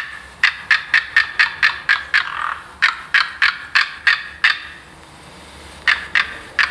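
Imagined Velociraptor mongoliensis call: a rapid series of short, sharp clicking chirps at about four a second. They come in two runs, with a pause between, and three more near the end.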